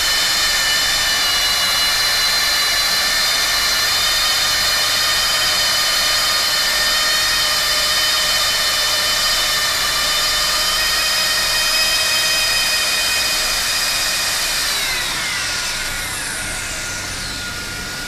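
Automatic hot-air plastic welding machine running, its hot-air blower motor giving a steady high whine over a rushing hiss. About fifteen seconds in the whine falls in pitch and gets quieter as the motor slows, leaving a fainter steady tone.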